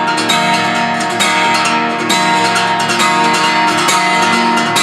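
Guitar strummed up to speed in the 'galop' pattern: quick groups of three strokes, down across the strings, up, down again, repeating in an even driving rhythm over ringing chords.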